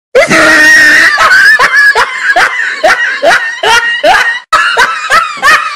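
An animated character's loud, high-pitched laugh: a long shrieking cry at the start, breaking into a steady run of short 'ha' bursts, about two and a half a second.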